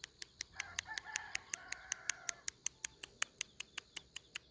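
A soft, wavering whine from a month-old puppy, from about half a second to two seconds in, over a steady rapid ticking of about five sharp clicks a second.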